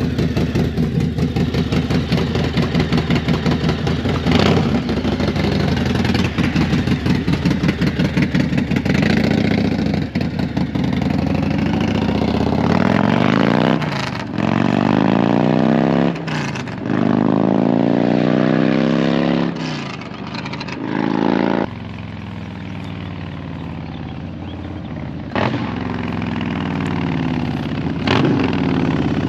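Motorcycle engine idling with a lumpy, pulsing beat, then pulling away with its pitch rising and breaking off several times as it shifts up through the gears, and finally running lower and steadier with a couple of brief throttle blips near the end.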